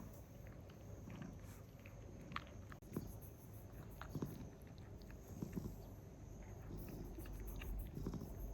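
Cats eating their food, with scattered small crunching and clicking sounds.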